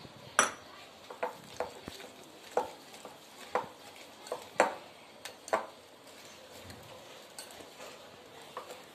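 Metal wire whisk clinking against a glass mixing bowl as thick cake batter is beaten, in sharp taps about once a second that thin out after about six seconds.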